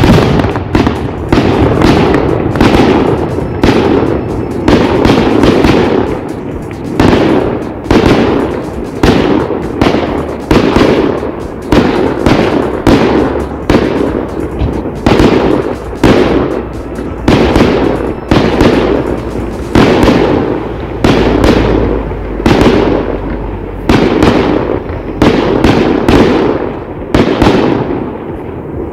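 Aerial fireworks shells bursting in steady succession, roughly one bang a second, each one trailing off before the next.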